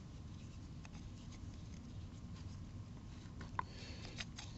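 Faint scraping and light metallic clicks as the cylinder of an 1880s Hopkins & Allen XL No. 4 .38 revolver is turned and worked back into its frame, the parts catching on old grime. One sharper metal click comes about three and a half seconds in, with a few more near the end.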